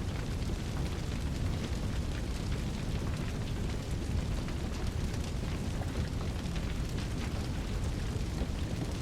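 Sound-effect recording of a fireball's flames: a steady, dense low rumble with continuous fine crackling throughout, and no single distinct blast.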